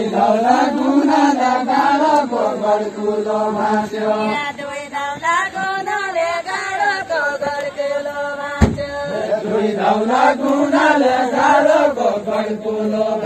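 A group of voices singing a Deuda folk song together, a chanted verse in long held phrases that keep the rhythm of the linked-arm dance. A single bump or knock is heard about two-thirds of the way through.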